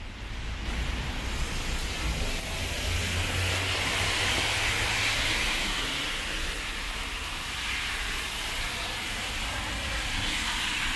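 Road traffic on a rain-wet street: a steady hiss of tyres on wet asphalt, with a low engine rumble swelling about three to five seconds in as a vehicle passes.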